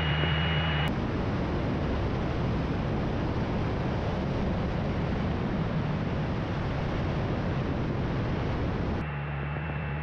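Single-engine propeller airplane on final approach heard from an outside-mounted camera: a steady rush of wind noise with the engine running underneath. About a second in it cuts from the cabin sound, with its steady engine hum, and near the end it cuts back to the cabin.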